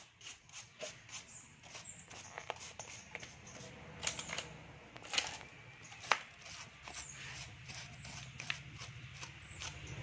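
A stiff plastic-bristled brush scrubbing the steel laminations and frame of a dismantled transformer in quick, irregular strokes, with a few sharper scrapes about four to six seconds in. A low hum comes in from about seven seconds.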